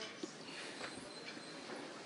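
Quiet room noise with a few faint light clicks.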